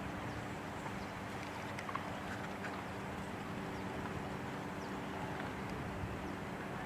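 A steady low mechanical hum, like a running engine, over an even wash of background noise, with a few faint high chirps.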